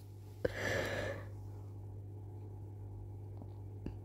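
A short breathy exhale about half a second in, over a steady low hum, with a faint click near the end.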